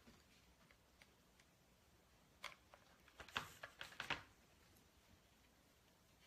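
Mostly near silence, with a few short, soft rustles about two and a half to four seconds in: burlap ribbon being handled and pinched together.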